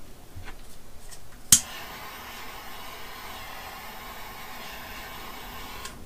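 Butane jet torch lighter clicked alight about a second and a half in, then burning with a steady hiss for about four seconds before it cuts off, heating the heat-shrink tubing on the connector.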